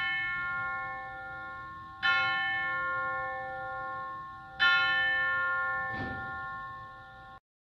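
A single church bell tolling, its strokes about two and a half seconds apart, each one ringing and slowly fading. The sound cuts off abruptly near the end.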